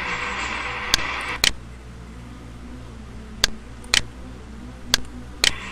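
Sharp computer mouse clicks in four pairs, each pair about half a second apart, over a steady hiss that drops off about a second and a half in.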